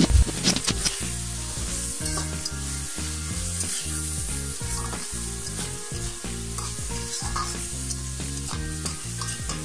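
Shrimp and sliced onion sizzling in hot oil in a metal pan, stirred with a spatula. The scraping strokes are loudest around the start, over a steady frying hiss.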